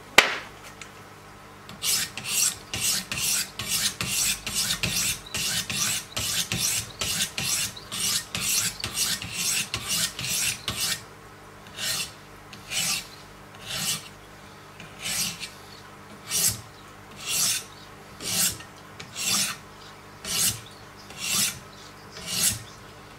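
Wicked Edge guided-sharpener 200-grit diamond stones rasping along the clamped blade of a Hogue EX-03 knife. The strokes come fast, about two or three a second, then from about halfway slow to roughly one a second. A sharp click comes right at the start.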